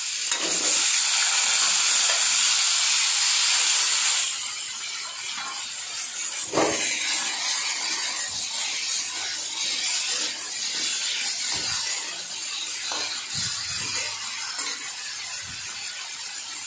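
Bitter gourd and potato slices sizzling in hot oil in a metal kadai, the freshly added bitter gourd giving a loud hiss for the first four seconds before it settles lower. A metal spatula stirring them gives a few scrapes and knocks against the pan.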